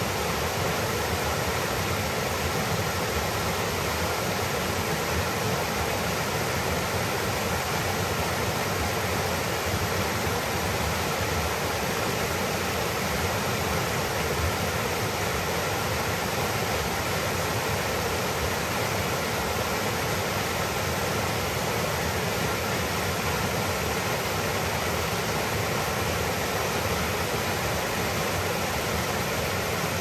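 Spring-fed stream rushing over rocks in a shallow cascade: a steady, even rush of white water.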